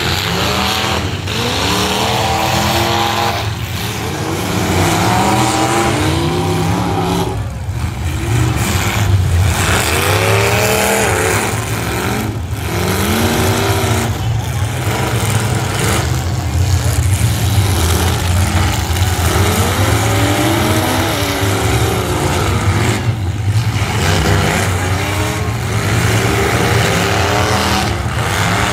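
Several full-size demolition derby cars' engines revving up and dropping back again and again over a steady low rumble, with occasional crashes of metal as the cars ram each other.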